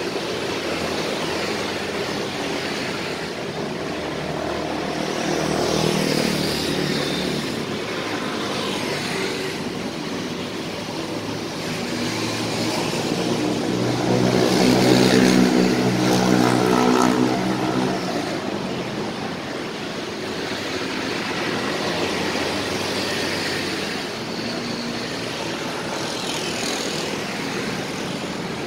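Road traffic on a city street: motorbikes and cars passing one after another in a steady wash. The loudest moment is a car passing close about halfway through, its engine swelling and fading.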